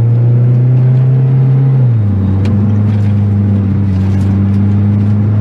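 Saab car engine running under way, heard from inside the cabin: a steady drone whose pitch steps down about two seconds in.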